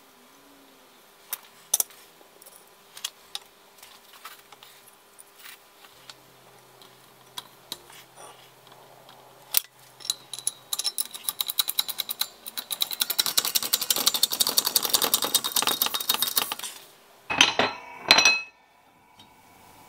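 Steel jig parts being handled and fitted together: scattered light metallic clicks and knocks, then about six seconds of rapid metallic ticking that grows louder, and a couple of clanks near the end.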